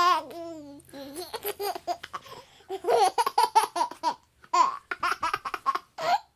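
A baby laughing in runs of short, quick giggles with louder bursts through the middle, and a couple of brief high squeals near the end.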